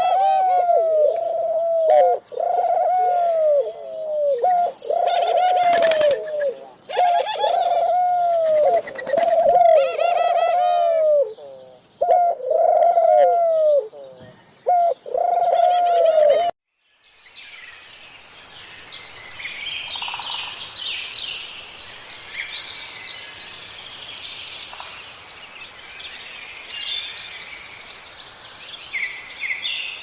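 Red-billed hornbill calling: a run of loud, hollow, low notes, about one a second, each dipping in pitch, with short breaks between runs. The calls cut off suddenly after about 16 seconds and are followed by fainter high-pitched chirps and twitters of small songbirds over a soft hiss.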